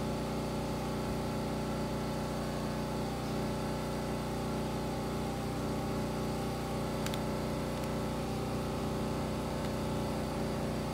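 Steady machine hum of a running motor, even in level throughout.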